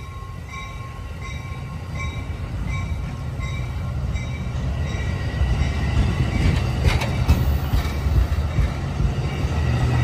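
Amtrak San Joaquin bilevel passenger cars rolling past, a low rumble of wheels on rail that grows steadily louder as the train pulls out. A faint bell rings fast in the first half and fades, and there is a single sharp clank about seven seconds in.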